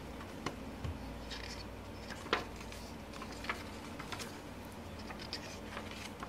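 Pages of a photobook being turned by hand: scattered light paper rustles and taps, with one sharper tap a little after two seconds in, over a low steady hum.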